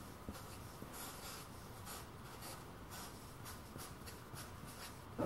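Felt-tip marker writing on a paper pad: a faint series of short scratchy strokes as figures are written out.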